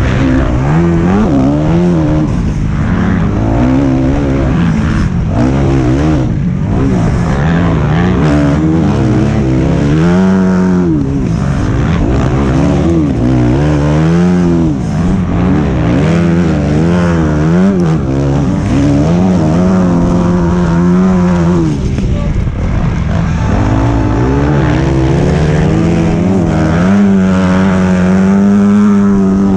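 A motocross bike's engine heard onboard, close to the microphone, revving up and dropping back over and over as the throttle is opened and shut through the race's corners and straights. The revs are held high and steady for a couple of seconds near the end.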